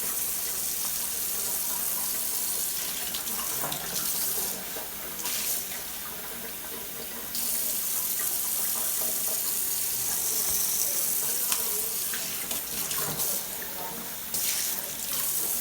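Kitchen tap running into a sink in a steady stream, its sound shifting now and then as green onions are rinsed under it, with a few light knocks.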